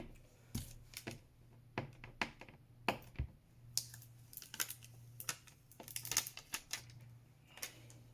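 Irregular light clicks and taps from handling transfer tape and a vinyl decal against a cup, over a faint steady low hum.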